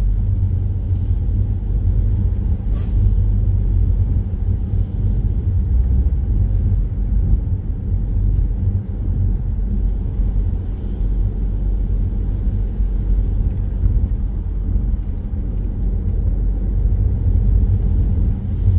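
Steady low rumble of a car's engine and tyres on a wet road, heard from inside the moving car's cabin, with a single sharp click about three seconds in.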